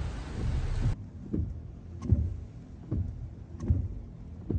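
Rain pelting a car, then from about a second in the windscreen wipers sweeping back and forth over the car's low rumble, a soft thump at each stroke about every 0.8 s.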